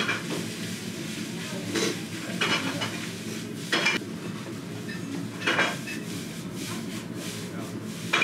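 Eating utensils clinking and scraping against a big donburi rice bowl in a few separate strokes, a second or two apart.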